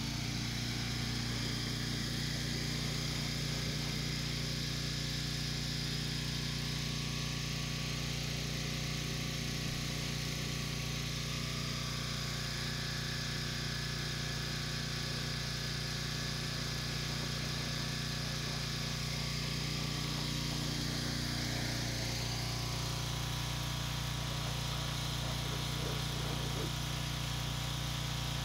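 A steady, unchanging low mechanical hum from a running machine.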